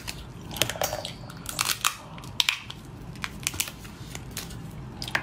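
Close-miked eating of lobster: chewing with irregular sharp crunchy clicks and crackles as the meat is bitten and pulled from the shell.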